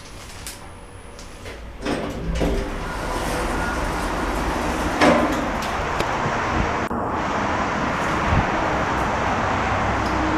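Lift doors sliding, with a sudden rise about two seconds in to a steady rushing noise with a low rumble, and a few short knocks.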